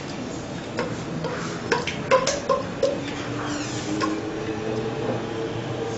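Light metallic knocks and clicks against a steel pan as thick custard is poured out of it. Several come in quick succession in the first three seconds and one more about four seconds in.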